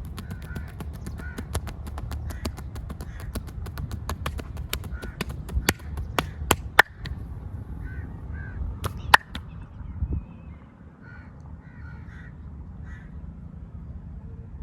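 Rapid hand slapping and tapping on skin in a vigorous massage: a quick run of sharp smacks for about the first seven seconds, the loudest near the end of that run, then a couple of hard strikes about nine seconds in. Repeated caw-like calls sound in the background.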